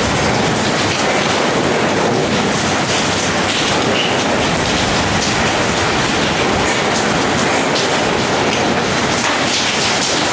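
Heavy tropical rain falling steadily on a metal sheet roof, with runoff pouring off the roof edge, making a dense, unbroken roar.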